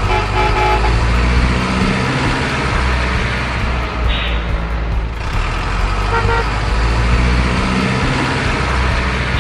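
Big truck engine running with a steady low rumble, with short horn toots near the start and again about six seconds in, and a brief hiss about four seconds in.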